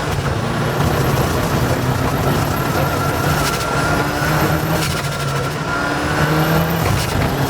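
Rally car engine running steadily under load, with a high whine that climbs and then holds, twice, and a couple of short sharp cracks in between.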